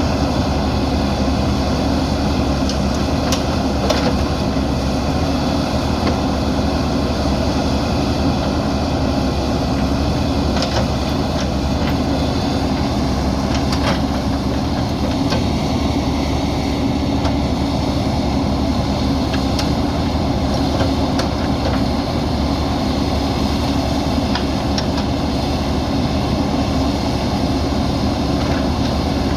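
Diesel engine of a JCB backhoe loader running steadily, with a few faint clicks over it.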